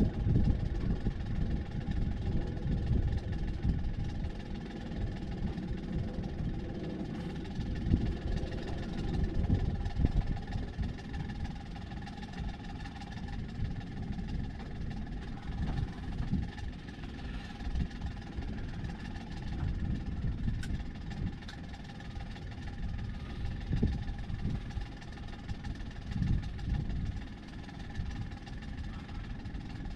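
Sailboat's auxiliary engine running steadily under way: a continuous hum with a gusty low rumble beneath it.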